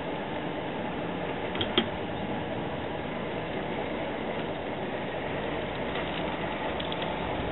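LGB G-scale model train running along its garden track: a steady rolling whir, with a single click about two seconds in and a few faint ticks near the end.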